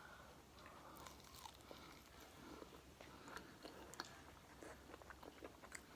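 Faint chewing and biting on chicken wings: many small, quiet crunches and mouth clicks.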